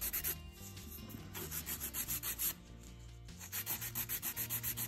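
Curved hand nail file rubbing over an acrylic nail in quick back-and-forth strokes, about seven a second, shaping and straightening the side of the nail. The strokes stop briefly twice, about half a second in and again in the middle.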